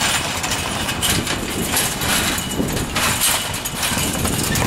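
Chain-link fence rattling and rustling as someone climbs over it, in irregular clattering strokes over a steady low rumble.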